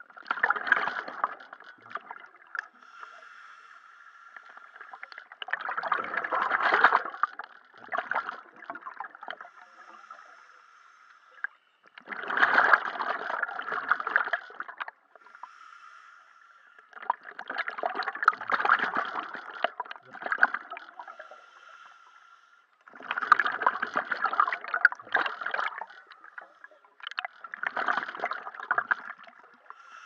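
Scuba diver breathing underwater through a Mares regulator: six exhalations, about one every five seconds, each a two- to three-second gurgling rush of bubbles, with a faint steady whine between breaths.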